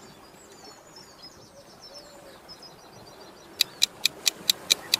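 Faint birdsong chirping, then a little over three and a half seconds in a countdown-timer ticking sound effect starts, about four to five sharp ticks a second and much louder than the chirps.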